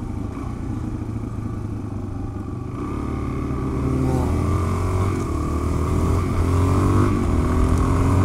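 Suzuki DR-Z400S single-cylinder four-stroke engine. It runs low and steady through a turn, then accelerates from about three seconds in, rising in pitch through the gears and getting louder.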